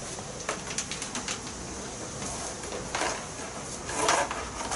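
Handling noise from knotting a cord around a coarse cloth sack of compost and cow manure: small clicks and cloth rustling, with louder rustles about three seconds and about four seconds in.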